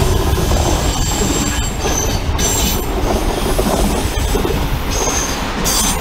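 Two coupled DB Class 643 Talent diesel multiple units running past at close range, with a steady rumble of wheels and running gear. Brief high wheel squeals come twice, about two seconds in and again near the end.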